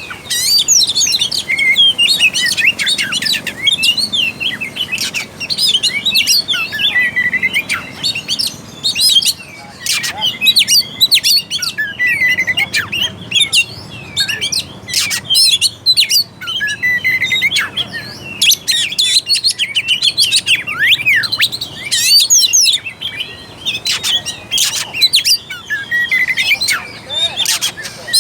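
Oriental magpie-robin (kacer) singing loudly without pause: a fast, varied run of whistled phrases, trills and sharp clicking notes, the vigorous full song used to provoke other magpie-robins into singing.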